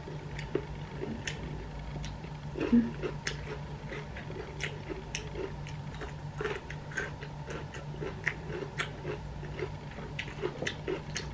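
Close-up eating sounds: biting and chewing green beans, with crisp clicks and crunches at irregular intervals over a steady low hum.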